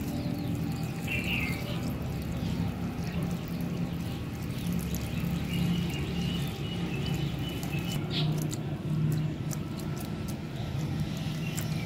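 Water poured from a small clay pot onto chopped gourd pieces in a clay bowl, then a hand pressing and moving the wet pieces, with a few sharp clicks near the end. A steady low hum runs underneath, with short bird chirps about a second in and again around six seconds.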